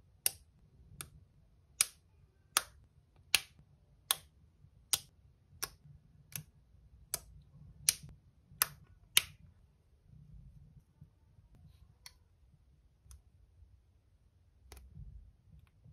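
Plastic LEGO pieces snapping together by hand: thirteen sharp clicks at an even pace, about one every three-quarters of a second, then a few fainter clicks after a pause, with a low rustle of handling underneath.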